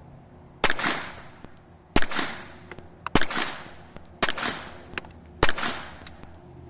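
Five suppressed pistol shots from a Beretta 21A .22 LR fitted with a Thompson Machine Horizon suppressor, fired about a second apart, each a sharp report with a short fading tail. The CCI rounds, sold as subsonic, are still very loud, and the shooter concludes they are not subsonic.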